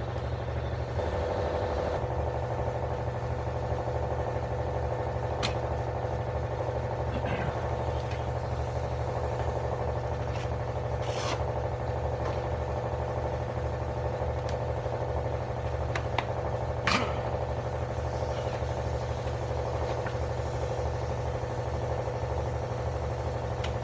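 A motor running with a steady, even hum, and a few sharp clicks scattered through it.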